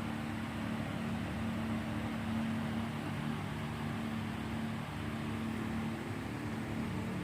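Steady low mechanical hum with a constant noise, a few low tones wavering slightly in pitch; there are no clicks or handling sounds.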